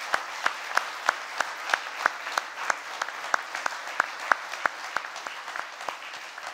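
Congregation applauding, with one person's hand claps close to the microphone standing out sharply at about three a second.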